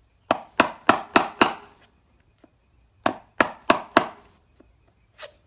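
Claw hammer striking a wood chisel's handle, chiseling into a wooden door jamb. A quick run of five blows, a pause, then four more, with one lighter knock near the end.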